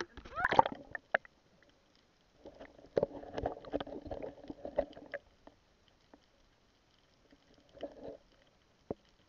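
Water splashing and gurgling as a free diver goes under the surface, then muffled underwater bubbling in two spells, the longer one about two and a half seconds in, heard through a diving camera's housing.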